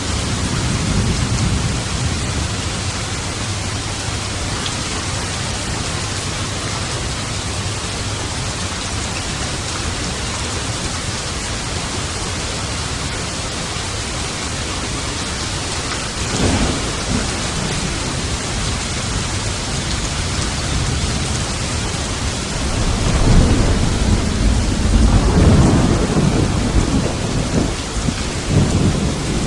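Steady rain with thunder: a sharp clap about halfway through, then a long low rolling rumble near the end, the loudest part.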